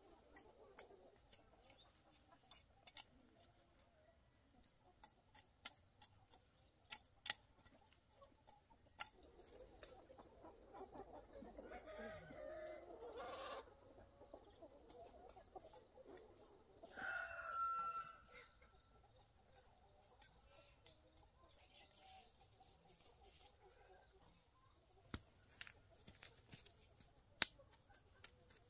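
Chickens clucking faintly, with a rooster crowing a little before halfway through and another loud call a few seconds later. Small sharp clicks are scattered throughout.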